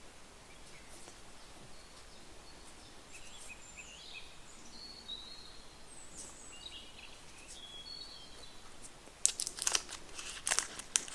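A paper muffin case crinkling in short, sharp bursts as it is peeled off a baked muffin, starting about nine seconds in. Before that, faint high bird chirps over a quiet background.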